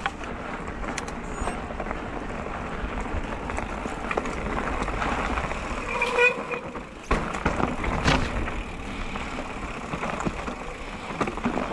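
Mountain bike rolling down a rocky dirt singletrack: steady wind and rolling noise, with a couple of sharp knocks as the wheels hit stones near the middle. About six seconds in, the bike's brakes give a short squeal, which the rider elsewhere on this descent calls the brakes complaining.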